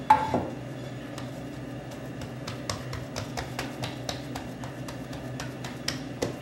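Hands patting and pressing a sheet of rolled-out bread dough into a square on a stone counter: soft, irregular taps a few times a second over a steady low room hum, after a short vocal sound at the very start.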